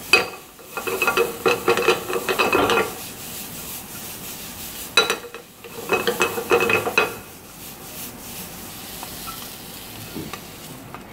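Wooden spatula stirring and scraping diced onion, carrot, celery and garlic in a hot frying pan as they sauté, with a light sizzle underneath. The stirring comes in two busy spells, one at the start and another around the middle, then eases to the steady sizzle.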